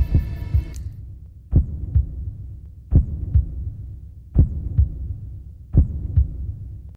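Heartbeat sound effect: deep double thumps over a low hum, one lub-dub about every second and a half. A held musical tone cuts out about a second in.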